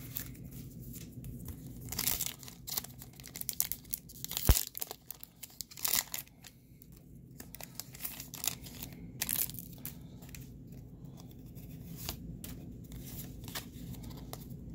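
A Pokémon booster pack's foil wrapper is torn open and crinkled, giving a run of sharp crackles and rustles that are densest a few seconds in. Softer rustling follows as the cards are handled.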